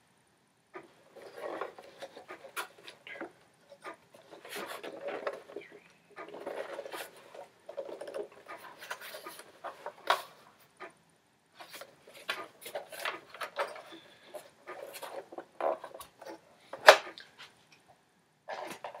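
Handling noise from a plastic Lumina domestic sewing machine as it is turned around and shifted on a covered table: irregular rubbing and bumping, with a sharp knock near the end as it is set down.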